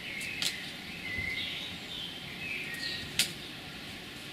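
Birds singing in short chirping phrases, with two sharp clicks: a small one about half a second in and a louder one about three seconds in.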